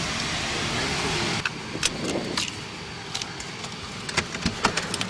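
Steady car cabin noise that drops away about a second and a half in, followed by a scatter of sharp clicks and light rattles from things being handled inside the car.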